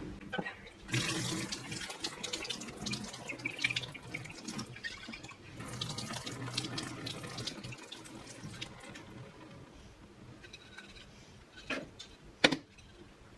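Water poured out of a jar of overnight-soaked seeds, splashing and trickling into a sink for several seconds before thinning out, with a couple of sharp knocks near the end.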